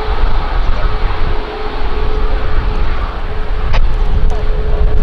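Strong gusty wind buffeting the microphone, a loud, uneven low rumble. Under it runs a faint steady whine, with a couple of small clicks near the end.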